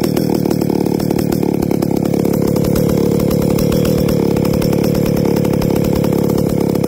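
Stihl 076 AV EQ Super chainsaw's two-stroke engine running steadily, exhausting through a homemade pipe muffler of brazed steel tubing.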